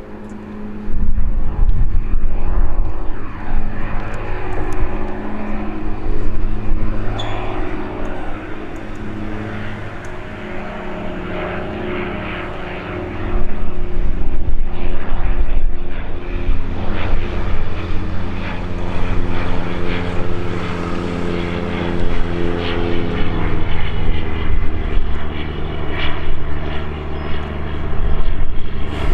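Diamond DV20 Katana light aircraft's Rotax 912 piston engine and propeller, a steady drone of several tones over a low hum through a touch-and-go. It gets clearly louder about halfway through as the plane climbs away.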